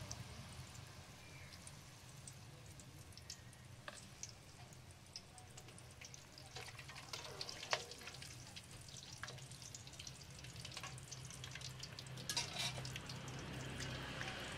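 Battered balut duck eggs deep-frying in a wok of oil: a faint steady sizzle with scattered pops and crackles. A few sharper clicks of metal tongs against the wok come near the middle as the eggs are turned.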